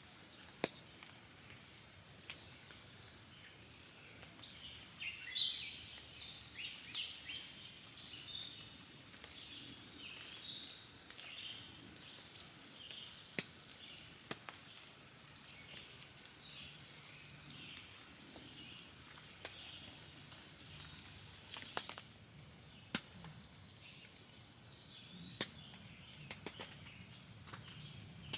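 Faint birds chirping and calling in short, varied phrases, busiest a few seconds in, over a low steady background with a few sharp ticks.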